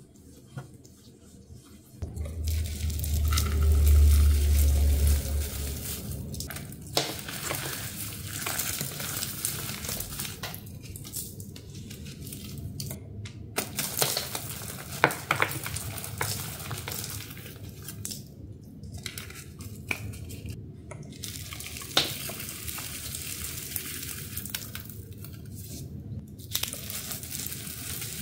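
A powdery block being crushed in fizzy water: a continuous fizzing crackle with scattered sharper cracks and brief lulls, opening with a low rumble for a few seconds.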